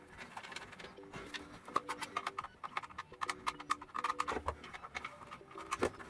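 Irregular clicks and rattles of plastic as the Electrolux Ergorapido handheld vacuum's housing is handled and screwed back together with a screwdriver.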